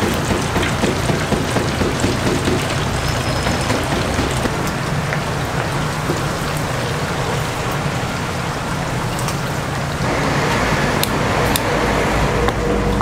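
Whole chickens deep-frying in a commercial fryer: the hot oil bubbling and sizzling steadily. A few sharp snips of kitchen scissors cutting a fried chicken come near the end.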